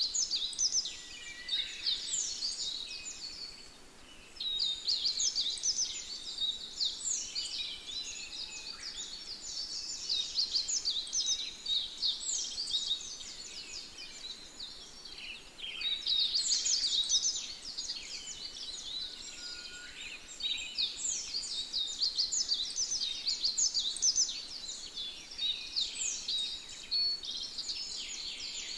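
Dense chorus of rapid, high-pitched falling chirps from wild birds in forest, swelling and fading in waves, with a short lull about four seconds in.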